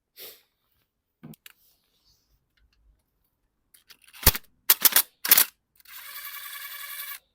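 Hand tools and metal parts clicking and knocking in a car engine bay, four sharp clicks in quick succession past the middle, then about a second of fast, even rattling.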